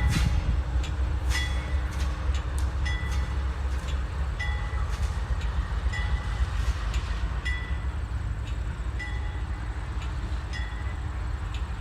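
Train rumbling by, with a ringing ding repeating about every three quarters of a second.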